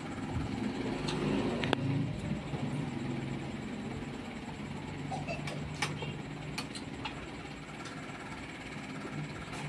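A man chewing food close to the microphone, with scattered small mouth clicks and smacks, over a steady low hum.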